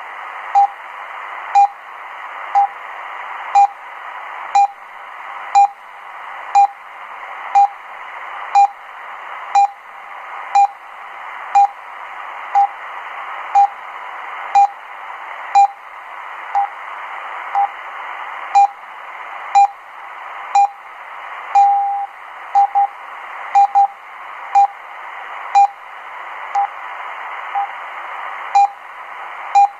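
RWM Moscow time signal on 9996 kHz shortwave, heard through a Degen DE1103 receiver's speaker: short beeps once a second over a steady hiss of shortwave static. About two thirds of the way in, one longer beep marks the minute, and a few doubled beeps follow it, the DUT1 code.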